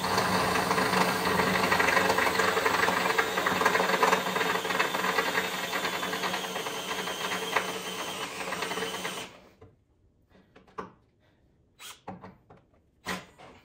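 Cordless drill boring a hole through the steel truck frame, the motor running steadily under load with the bit biting into the metal. It fades a little, then cuts off about nine seconds in, followed by a few light clicks.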